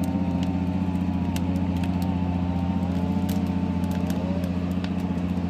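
The outboard engine of a flat-bottomed aluminium motorboat running steadily on the river, a constant drone with a slightly wavering whine above it. A campfire crackles close by with scattered sharp pops.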